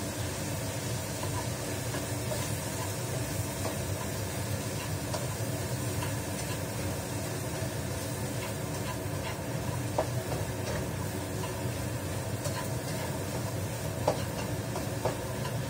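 Steady whooshing of a kitchen range hood fan over a tomato, carrot and egg stir-fry sizzling in a frying pan, with a spatula stirring and tapping against the pan a few times, sharpest about ten seconds in and twice near the end.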